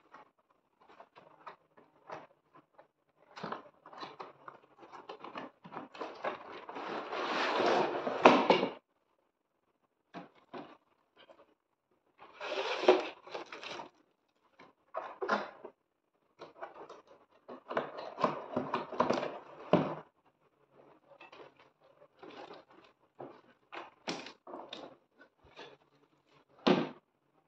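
Cardboard box and plastic-wrapped solar LED street light being handled and slid apart, scraping and rustling in irregular bursts with thunks. One long scrape grows louder over a couple of seconds about a quarter of the way in, and a sharp knock comes near the end.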